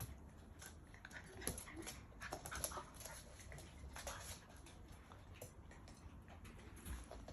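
Seven-week-old Labrador puppies whimpering faintly in short bits, among scattered light clicks and scuffling.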